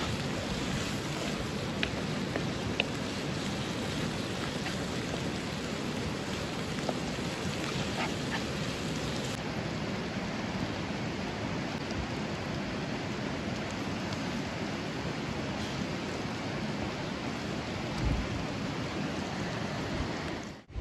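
Food frying in oil in a pan over an open fire: a steady sizzle with a few small pops.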